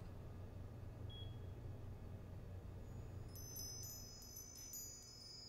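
A faint steady low hum. A little past halfway, several high, thin chime tones come in one after another and ring on, overlapping.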